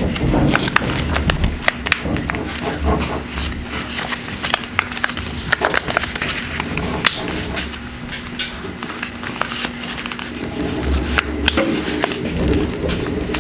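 Paper being folded and creased by hand on a tabletop: rustling and crackling with many sharp little clicks, and dull bumps of hands pressing against the table near the start and again near the end.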